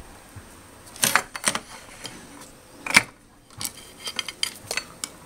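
Metallic clicks and taps of multimeter probe tips touched against the MOSFETs' metal tabs on a circuit board: a louder click about a second in and another about three seconds in, then a quick run of lighter ticks.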